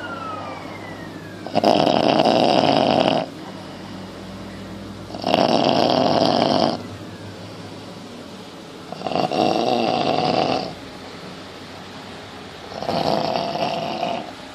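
Snoring: four loud snores, one about every three and a half to four seconds, each lasting about a second and a half.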